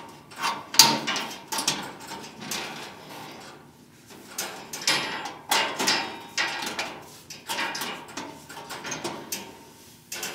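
Metal back spacer being worked into the index holes of a Dixie Narco vending machine's can column: irregular clanks, scrapes and rattles of metal against the sheet-metal column walls.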